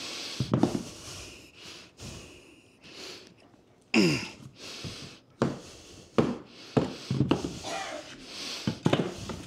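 Hardwood floor planks and a mallet knocking and thudding as the planks are handled and fitted into the row, a series of sharp knocks from about four seconds in, with a person's breathing in between.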